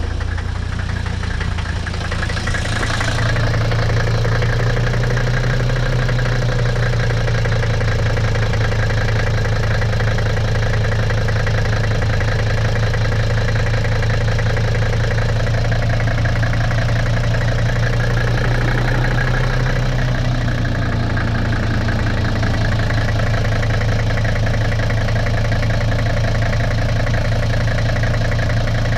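Mercedes-Benz W126 diesel engine idling just after a cold start, building up over the first few seconds and then running steadily. With a new glow plug fitted, it idles without the rough startup shake: the misfire is cured.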